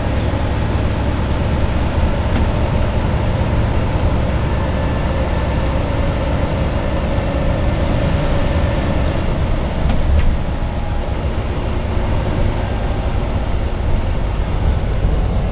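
Volvo B9TL double-decker bus heard from inside while running: a steady low engine and road rumble with a held hum over it that swells in the middle, and a brief knock about ten seconds in. The hum is the unexplained humming noise this bus makes.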